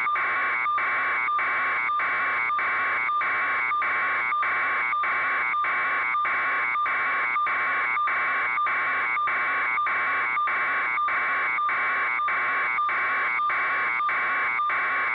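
A loud, harsh electronic buzz with a steady tone near the top of a whistle's range, broken by very short gaps about three times a second.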